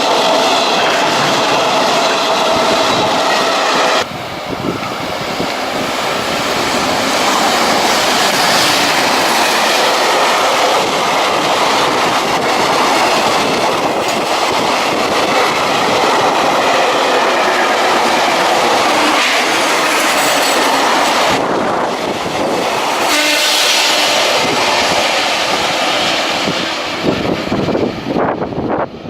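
Freight train passing close by on the rails, its wagons clattering and rumbling steadily, with a steady whine for the first four seconds.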